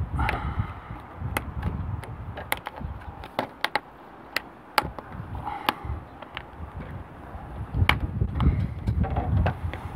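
Irregular sharp clicks and taps of a plastic LED light-strip trim being pressed into place by hand, with wind gusting on the microphone as a low rumble that grows near the end.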